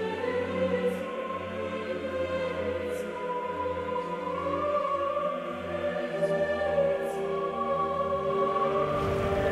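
Film score of choral, operatic singing: long held voices that slowly shift in pitch, over a low pulsing drone.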